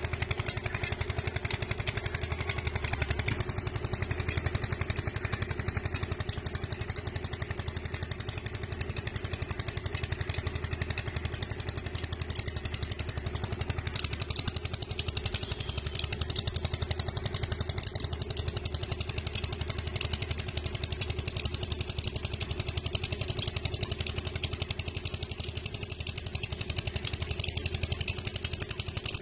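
Diesel farm tractor engine running steadily, hauling a trolley heavily loaded with earth.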